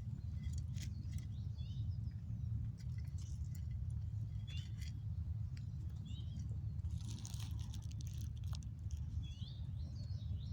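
Short bird chirps now and then over a steady low rumble, with scattered small crackling clicks.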